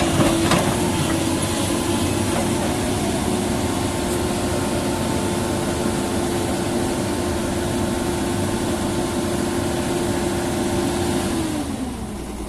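Doosan excavator's engine running steadily at high revs, with a couple of knocks right at the start. Near the end the engine note drops in pitch and eases off as the revs come down.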